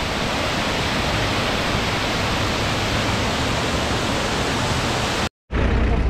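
Water from a small waterfall pouring over a low stone wall: a steady, even rush. It cuts off abruptly about five seconds in, and a low rumble follows.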